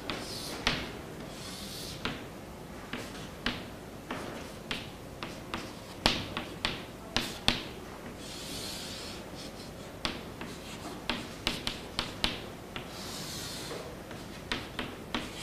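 Chalk on a chalkboard: a run of irregular sharp taps as points and letters are marked, and two longer scratchy strokes as lines are drawn, one about halfway and one near the end.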